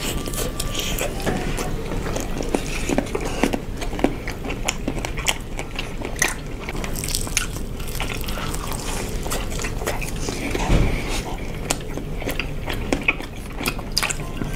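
Close-miked crunching and chewing of crispy fried chicken, with many irregular sharp crunches as two people bite into the pieces and chew.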